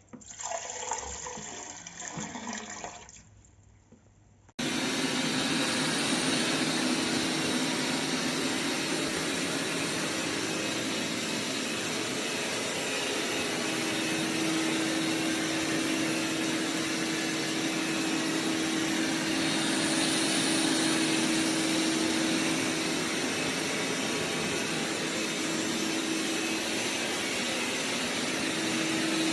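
Dreame robot vacuum-mop machinery starts abruptly about four and a half seconds in and runs steadily, a loud rushing noise with a steady hum through it. Before that comes a short sound that glides in pitch.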